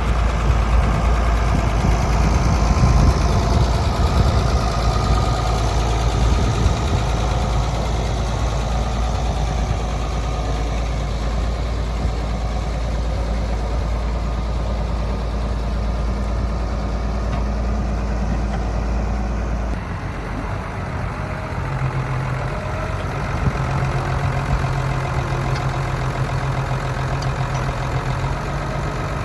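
Tractor engines running steadily. The deep engine hum drops away about two-thirds of the way through, and another engine's steady note comes in soon after.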